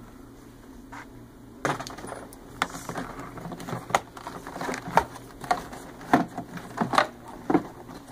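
After about a second and a half of quiet, a string of irregular knocks and clinks follows: tools, small metal parts and the hard plastic housing of a carpet cleaner being handled and set down.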